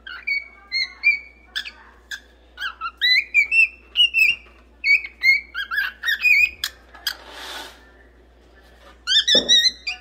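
Cockatiel singing: a string of short, gliding whistled notes. A short hiss comes about seven seconds in, followed by a pause of over a second before the whistling starts again.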